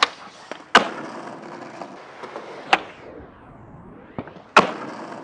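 Skateboard wheels rolling on concrete, broken by sharp board claps from pops, ledge contact and landings: one at the start, then three louder ones about two seconds apart. The rolling drops away briefly past the middle while the board is in the air.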